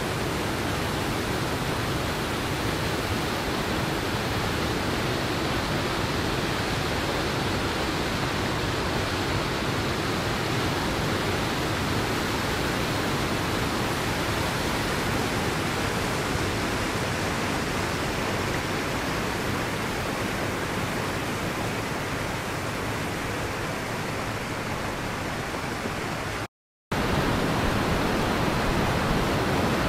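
Big Niagara Falls: whitewater pouring over granite ledges, a steady rushing of water. It drops out for a split second near the end, then comes back slightly louder.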